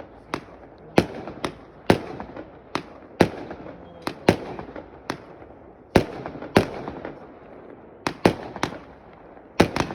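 Fireworks salute: shells bursting in sharp bangs, each with a trailing echo, at uneven intervals of about one a second, then a rapid flurry of bangs near the end.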